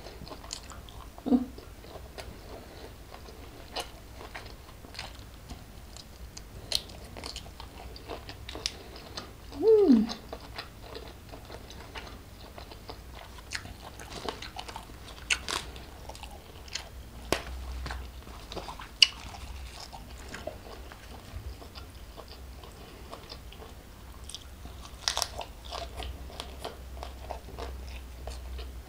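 Close-miked chewing and crunching of a meal of prawns in chilli sambal, rice and raw leafy vegetables, with many scattered crisp bites and mouth clicks. Twice there is a brief hum from the eater that falls in pitch, about a second in and about ten seconds in.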